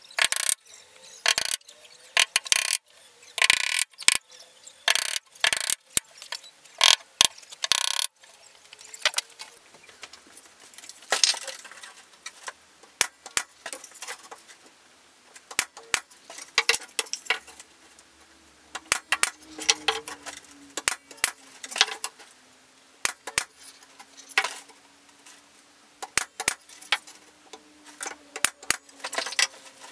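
A hammer striking nails into a plywood panel, a quick run of sharp blows for about the first eight seconds. After that come scattered lighter clicks and knocks as thin wooden slats are handled and fastened.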